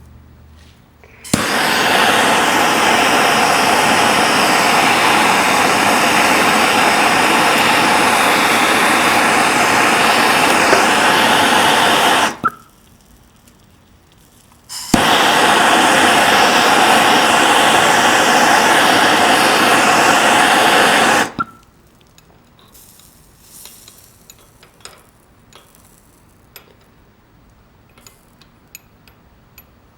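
Small handheld gas torch burning with a steady loud hiss while heating a brass fitting on a steel seat pan for soldering. It runs about ten seconds, stops, then lights again sharply for about six more seconds before going out. Faint light ticks follow.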